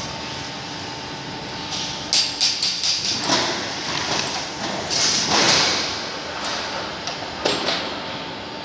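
Roller-shutter production line: machinery runs with a steady high hum while corrugated steel shutter sheet clanks and rattles on the metal feed table. A quick run of sharp metallic knocks comes about two seconds in, with rushes of rattling noise around three and five seconds in and another knock near the end.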